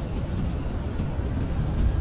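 Blizzard wind blowing hard: a steady low rumble with a fainter hiss above it.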